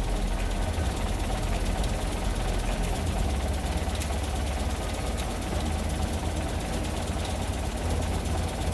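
Land Rover Series 3 engine idling steadily just after starting, with a low, even rumble.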